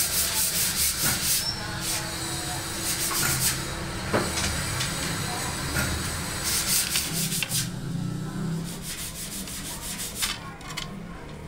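Quick rasping strokes of hand abrasion against a spinning snooker cue part, coming in several bursts, over a steady low motor hum.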